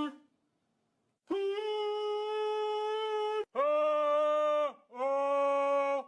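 Metal Chladni plate bowed with a violin bow, singing steady, pure-pitched notes as it rings at one of its vibration modes. After about a second of silence comes one higher note held for about two seconds, then two lower notes of about a second each, each bowed stroke starting and stopping cleanly.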